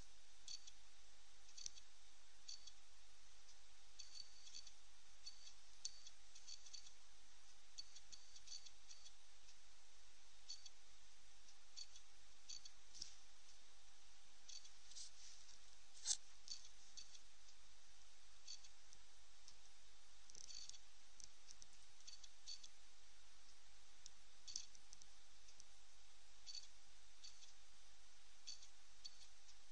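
Light, irregular clicking of a computer hard drive seeking under heavy disk activity while files are processed, with one louder click about sixteen seconds in. A faint steady tone hums underneath.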